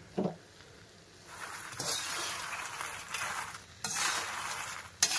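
Metal spatula stirring puffed makhana (fox nuts) as they dry-roast in a kadhai: a dry rustling, scraping rattle in two stretches after about a second of quiet, with a sharp clink of metal near the end.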